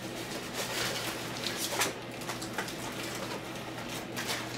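Paper envelopes and plastic wrapping rustling and crinkling by hand as mail is unwrapped, in a string of short, irregular crinkles.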